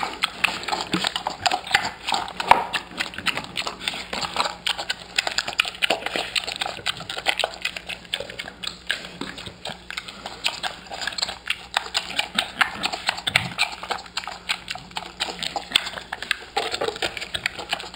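Mini pig eating a blended mash of crackers, vegetables and milk from a bowl, a steady stream of short smacking and slurping clicks.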